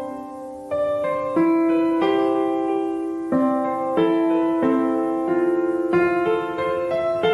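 Background music: a piano-like keyboard playing slow chords, each struck and held until the next.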